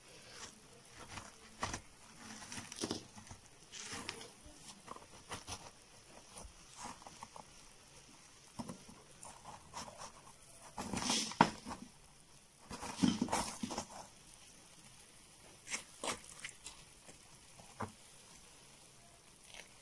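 Metal fork scraping and breaking up a baked coarse-salt crust on a salt-baked fish, with irregular crunching and scratching of salt grains; a cluster of louder scrapes comes a little past halfway.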